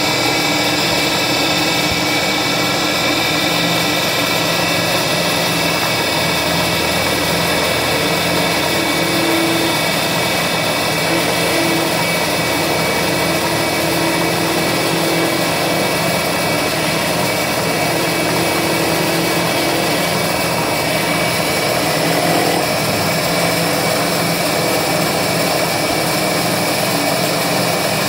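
CNC milling machine's spindle running at speed as a small end mill cuts a thin aluminium plate: a steady whine made of several high tones over the hiss of the cut.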